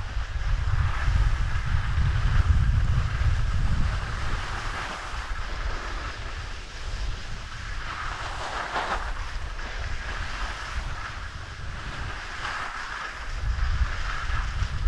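Wind buffeting the microphone while skiing downhill, over the steady hiss of skis sliding on packed snow. The hiss swells briefly about eight seconds in, and the wind rumble is heaviest in the first few seconds and again near the end.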